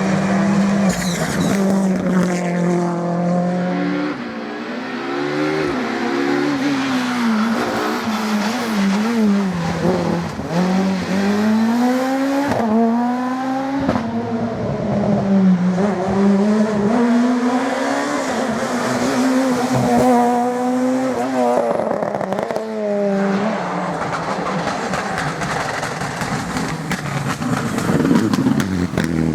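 Rally car engines at full throttle, the pitch climbing and then dropping sharply over and over as the cars change gear and pass by.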